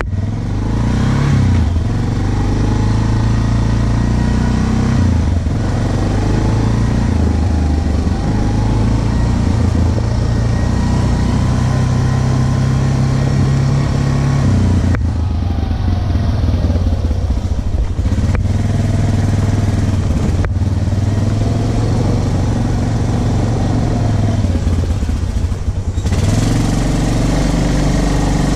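Yamaha ATV engine running as the quad is ridden along a trail, its pitch rising and falling as the rider speeds up and eases off. The sound changes abruptly several times.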